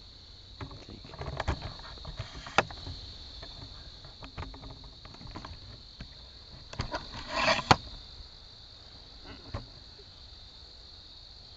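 A steady, high-pitched drone of insects in the woods. Scattered short crackles and snaps sound over it, with a louder cluster and a sharp snap about three-quarters of the way through.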